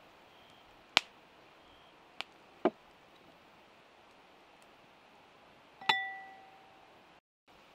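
Glass spice jars tapping and clinking against a bowl as spices are shaken in: three sharp taps in the first three seconds, then a louder ringing clink about six seconds in that fades over about a second.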